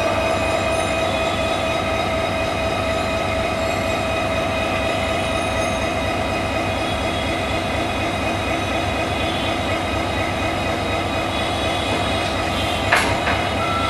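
Diesel-electric locomotive's engine running steadily at idle with a low rumble and a steady whine as the locomotive is turned on a turntable, with a single metallic knock about a second before the end.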